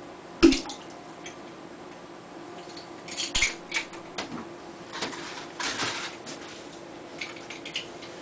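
Plastic nutrient bottle and measuring cap being handled and set down: a sharp click about half a second in, then scattered knocks and clatters of plastic.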